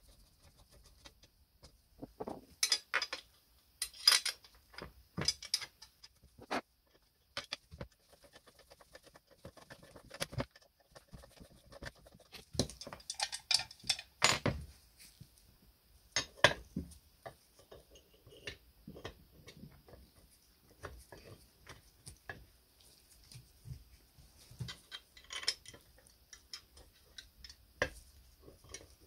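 Irregular sharp metallic clicks and clinks of screws, a screwdriver and small steel fittings handled against the cast-iron body of a fruit juicer as it is reassembled.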